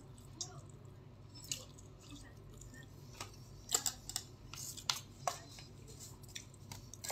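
Faint eating sounds: scattered soft clicks and crinkles from picking at rice in an aluminium foil takeaway tray. Several come in quick succession about halfway through.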